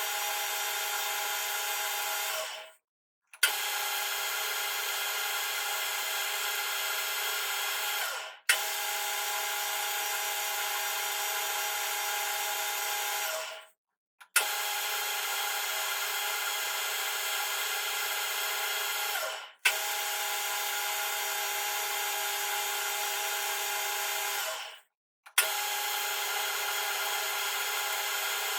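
Metal lathe running, a steady machine whine with many tones, cutting a metric M12 thread in a cold rolled steel bolt. It stops about every five to six seconds and restarts each time with a sharp click, pass after pass.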